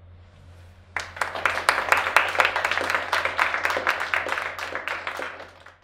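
Audience applauding: many hands clapping start suddenly about a second in and fade away near the end, over a low steady hum.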